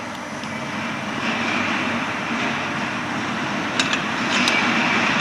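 CNC aluminum profile arc bending machine running, a steady mechanical drone with a high whine that grows louder after about a second, and two sharp clicks near the end.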